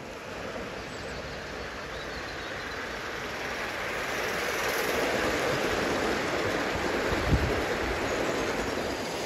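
Gauge 1 live-steam model train running past on garden track: a steady rushing of wheels on the rails and escaping steam that grows louder toward the middle and eases off near the end, with a brief low knock about seven seconds in.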